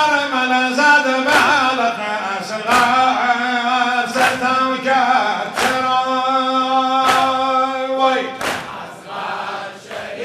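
Men chanting a Muharram noha (mourning lament) in unison, with a held low note under the melody. The crowd's hands slap their chests together about every one and a half seconds, in time with their steps. The singing breaks off near the end and one more chest beat follows.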